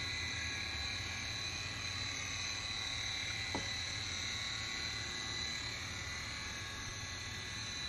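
Cordless pool vacuum's motor running underwater: a steady low hum, with a steady high buzz over it.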